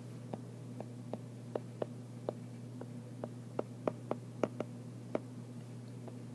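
Stylus tip tapping and clicking on an iPad's glass screen during handwriting: small irregular clicks, two or three a second, over a steady low electrical hum.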